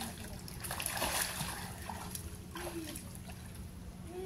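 Pool water splashing and sloshing as people wade and swim, with a louder rush of splashing about a second in.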